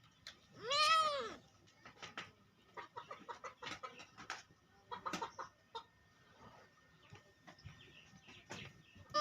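A cat gives one loud meow about a second in, its pitch rising and then falling. A run of faint, short sounds follows for several seconds.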